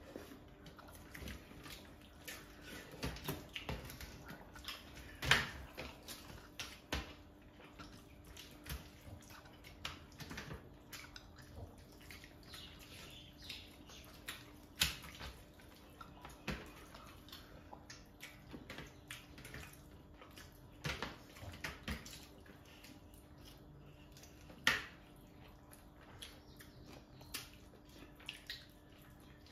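Wet squishing and clicking of bare hands mixing rice and fish curry on steel platters, with the sounds of mouths eating; irregular sharp clicks, the loudest about five, fifteen and twenty-five seconds in.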